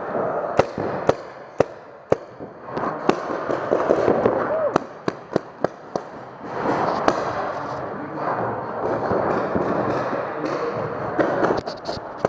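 Paintball markers firing: sharp pops at irregular intervals, sometimes several in quick succession.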